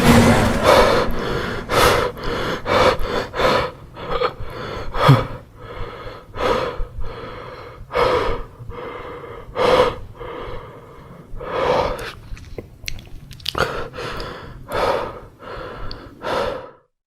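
Heavy, ragged gasping breaths, about one a second at an uneven pace. They cut off suddenly near the end.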